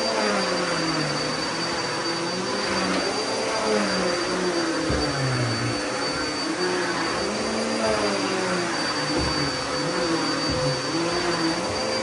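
Upright vacuum cleaner running on carpet: a steady rush of suction with a constant high whine, and a lower motor hum that wavers up and down in pitch as the machine is pushed back and forth.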